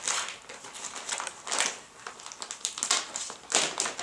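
Irregular crinkling and rustling of cloth and packaging being handled, in several bursts, loudest about one and a half seconds in and near the end.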